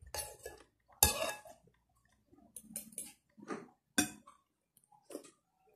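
Metal spoon and fork clinking and scraping against a plate during a meal. There are a few sharp clinks, the loudest about a second in and another near four seconds, with softer scraping in between.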